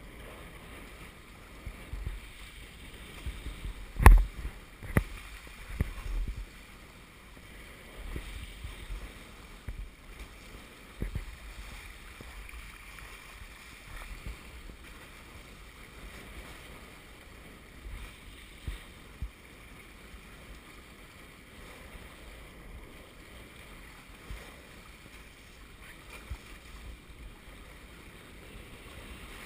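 Water rushing and splashing along the hulls of a Hobie Wave catamaran under sail, with low wind rumble on the microphone and scattered thumps, the loudest about four seconds in.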